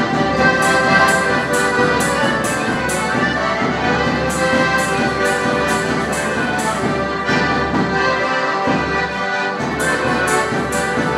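Polish folk band playing a dance tune: two accordions carry the melody over guitar, with a drum beating time at about two to three strokes a second. The beat drops out briefly in the first half and for a few seconds in the second half while the accordions play on.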